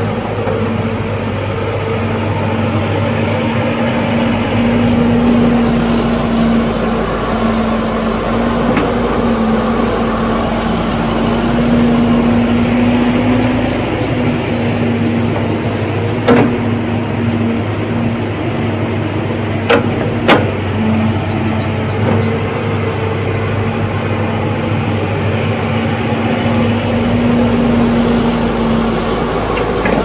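Hydraulic excavator's diesel engine running steadily with a constant hum. Three sharp knocks stand out, one about halfway through and two close together a few seconds later.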